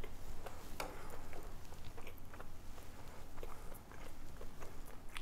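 A person chewing a mouthful of salad, with small irregular crunching clicks.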